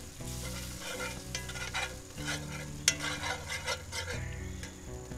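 Metal spoon stirring and scraping a sizzling roux-and-wine gravy in a cast-iron skillet, with repeated scrapes and clicks against the pan, over low steady background music.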